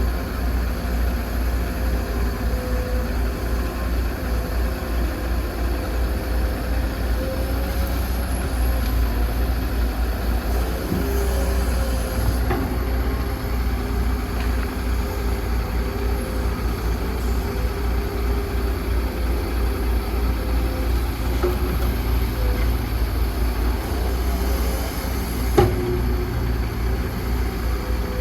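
Excavator's diesel engine running steadily, a deep rumble with a steady tone over it, and one sharp knock near the end.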